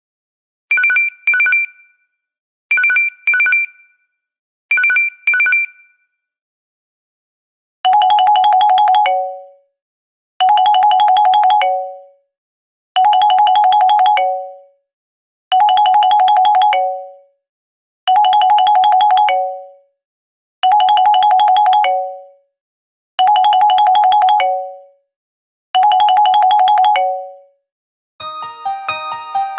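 LG Optimus G E975 ringtones. First a telephone-style ring of short double beeps in pairs, repeating about every two seconds. After a short pause comes a different trilling ring tone, each ring ending on a lower note, repeating about every two and a half seconds; a keyboard melody starts near the end.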